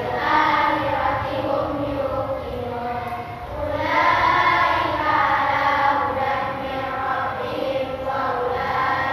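Young girls chanting memorised Quranic verses together in unison, their voices drawn out in a sing-song melody.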